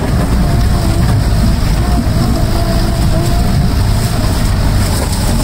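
Custom-built LuAZ off-road vehicle on metre-tall wheels driving off-road: a loud, steady rumble of engine and drivetrain with a whine that wavers in pitch.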